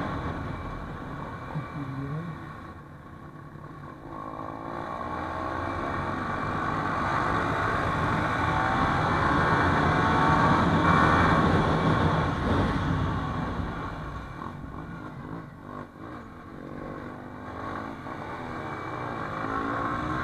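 Sport motorcycle running at road speed, heard from the bike's onboard camera with wind rushing over the microphone. The engine note grows louder through the first half, eases off a few seconds later, then picks up again near the end as the bike accelerates.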